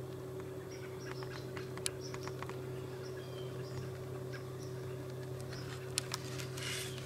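Quiet outdoor field ambience over a steady low hum, with scattered small clicks and ticks, a few faint short high chirps and a brief rustle near the end.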